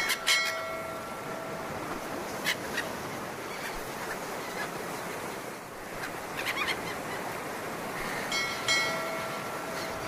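A steady rush of wind and sea. Bird calls come once just after the start and again in a short cluster near the end, with a few sharp ticks in between.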